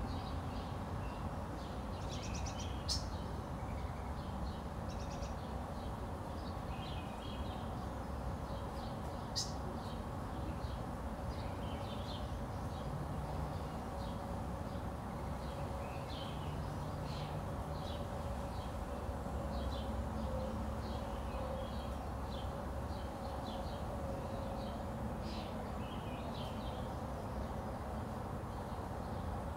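Several small birds chirping in short, scattered calls over a steady low rumble.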